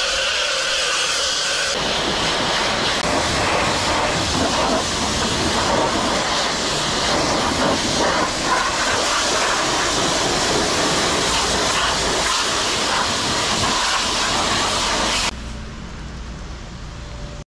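Steady rushing noise of a CFMOTO 1000 quad bike ridden at speed: wind on the microphone over engine and tyre noise. It grows fuller about two seconds in and drops abruptly to a quieter level near the end.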